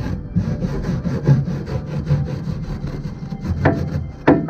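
Stiff hand brush scrubbing the ribbed steel slide rails of a vintage Snap-on toolbox in quick back-and-forth strokes, about three a second, with two sharper knocks near the end.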